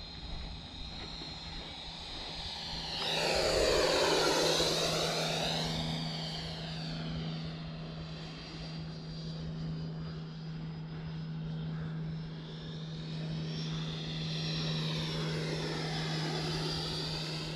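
Electric ducted-fan model Viper Jet, powered by a Wemotec fan unit, making two fly-bys: a high whooshing whine that swells and falls away about three to five seconds in, then a second, weaker pass about fifteen seconds in.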